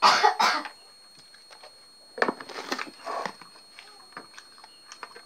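Mouth sounds of someone eating rice by hand: a loud wet burst in the first half second as the fingers go into the mouth, then a run of chewing noises about two seconds in.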